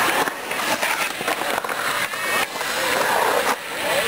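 Skateboard wheels rolling on the concrete of a skatepark bowl, with a few sharp knocks from the board.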